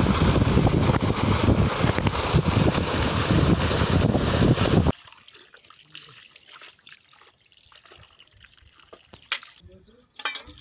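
Loud, steady rush of running water that cuts off abruptly about five seconds in. It is followed by quiet with a few faint clicks and knocks.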